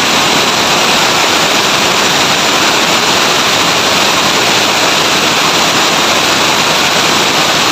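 Several motorcycles with loud open exhausts revved hard together, competing for the loudest pipe. It is a steady, unbroken noise with no clear engine note.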